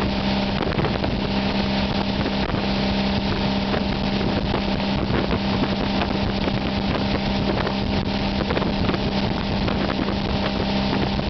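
Tow boat's engine running at a steady cruising speed, with the continuous rush of water and spray and wind buffeting the microphone.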